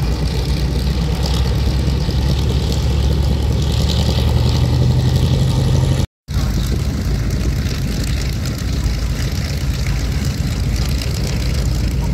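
The four Wright Cyclone radial engines of a B-17G Flying Fortress drone steadily as it flies low past. The sound breaks off for a moment about six seconds in.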